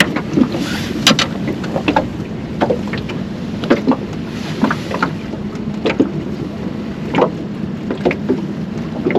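Small fishing boat on the water: a steady low motor hum with irregular sharp knocks and slaps, roughly one a second.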